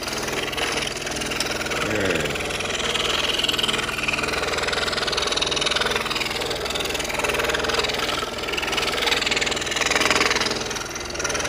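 DeWalt DW788 scroll saw running steadily at high speed, its reciprocating blade cutting a thin wooden puzzle panel. The owner says this saw is starting to make some noise with wear.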